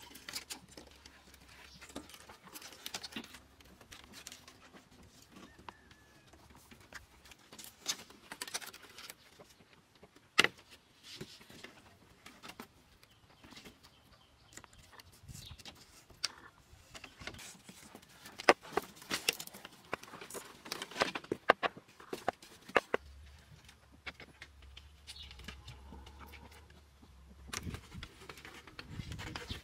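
Bamboo slats and wooden poles clicking, knocking and rattling as they are fitted and tied onto a wooden frame, in irregular bursts. One sharp knock comes about ten seconds in, and a busy run of clicks about two-thirds of the way through.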